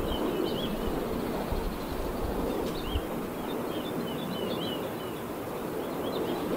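Steady rushing noise of turning wind turbines, swelling a little now and then, with small birds chirping in short scattered bursts over it.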